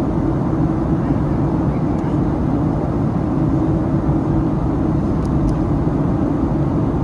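Steady cabin noise inside a Boeing 737-800 airliner: the even rush of airflow and the low rumble of its CFM56 engines.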